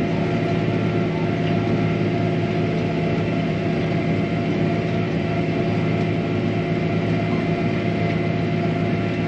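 John Deere tractor's diesel engine running steadily while pulling a disc, heard as an even drone inside the closed cab.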